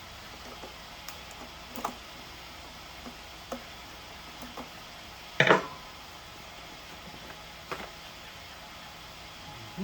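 Scattered light clicks and knocks of hands and tools handling the leaf blower and its parts, with one louder short clatter about five and a half seconds in; the engine is not running.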